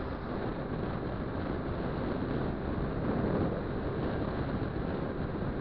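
Steady wind rush buffeting the microphone of a camera on a moving vehicle, with engine and road noise blended into an even drone.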